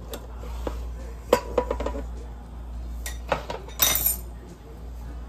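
Kitchen clatter: scattered clinks and knocks of a stainless steel mixing bowl and a chef's knife handled on a plastic cutting board, with a short, louder swish about four seconds in.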